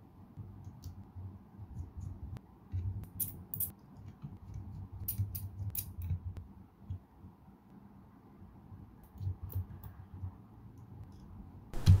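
Light clicks and scrapes of small plastic and metal laptop parts being handled and fitted back into an opened laptop, in short clusters over a low rumble of handling. A louder knock comes just before the end.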